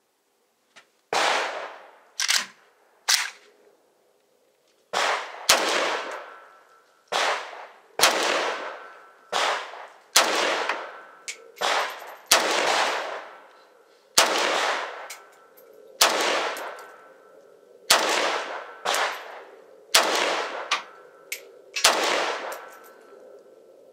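Norinco MAK-90 semi-automatic AK-type rifle in 7.62x39mm firing a string of roughly eighteen shots, spaced half a second to two seconds apart, each with a ringing, echoing tail. There is a short pause after the first three shots.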